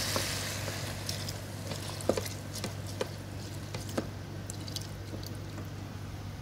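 Coconut milk poured from a plastic cup onto rice and beef in a hot electric pressure cooker pot, the sizzle fading as it goes in, with a few light clicks of the cup and wooden spatula against the pot.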